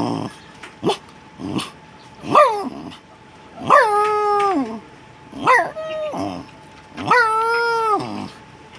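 A man imitating a dog with his voice: a run of dog-like yelps and whining howls. The calls rise sharply, hold their pitch and then slide down, and the two longest last about a second each.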